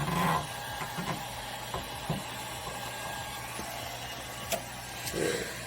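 Heat gun blowing steadily on its lowest setting, a constant fan hum, with a few faint clicks.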